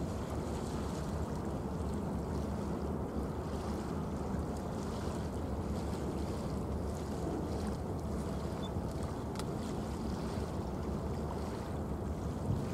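Steady low rumble of a large cruise ship's engines and machinery carrying across open water, unchanging throughout.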